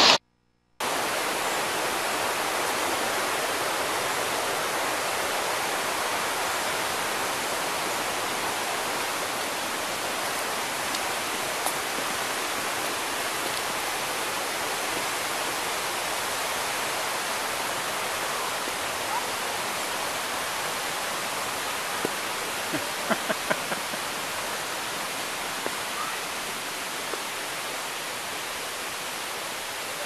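Steady rushing of a waterfall, slowly growing fainter, after a brief dropout at the very start. A few light clicks come a little past two-thirds of the way through.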